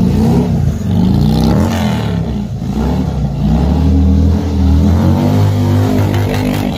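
Harley-Davidson Road King's Twin Cam 88 V-twin revving up and down repeatedly under hard throttle as the bike is drifted in circles.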